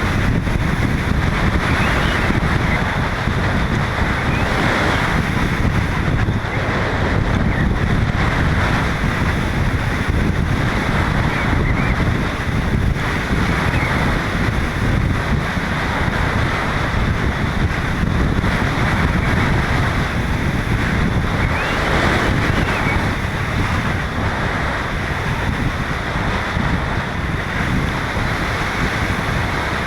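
Strong wind blowing across a GoPro camera's microphone: a steady, loud rush with low rumbling buffeting and no breaks.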